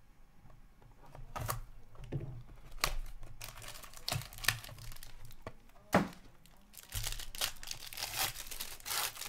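2019-20 Upper Deck Stature hockey card box being opened by hand: a pack's plastic wrapper crinkles and tears open in irregular crackles. A sharp knock comes about six seconds in.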